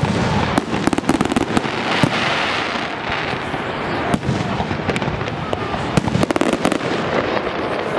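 Fireworks display: aerial shells bursting in a run of sharp bangs, with clusters of quick crackling pops between them.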